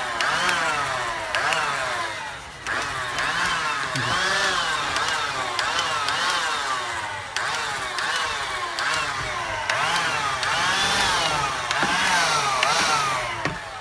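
Blower motor revving up and down over and over, its pitch rising and falling about once a second, as it blows loose cellulose fibre insulation off a ceiling manhole cover.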